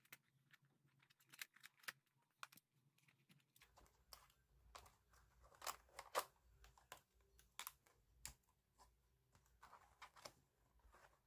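A spiral notebook being pulled apart by hand: faint, irregular clicks and small paper rips as the pages come away from the spiral binding.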